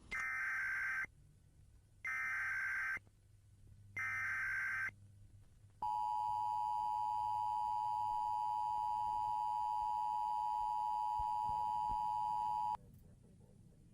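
Emergency Alert System SAME header: three one-second bursts of buzzy digital data tones about a second apart, then the NOAA Weather Radio 1050 Hz warning alarm tone held steady for about seven seconds and cutting off, the signal that a tornado warning message follows.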